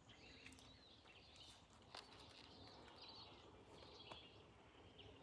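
Near silence: faint garden ambience with scattered distant bird chirps and a few faint light clicks.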